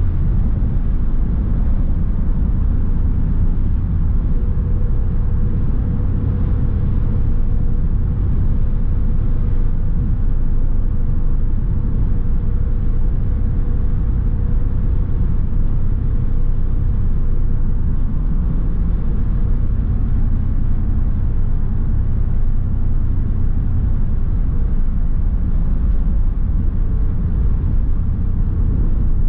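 A 1987 Chevrolet Camaro Z/28's V8 and road noise heard from inside the cabin while cruising at an even speed: a steady low rumble with a faint steady hum above it.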